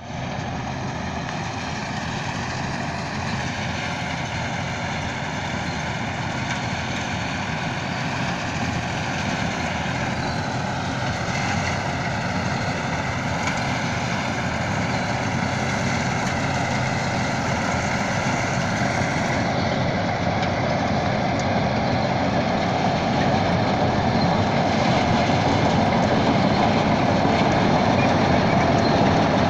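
Combine harvester running as it cuts ripe paddy, a steady machine drone that grows gradually louder as the harvester comes closer.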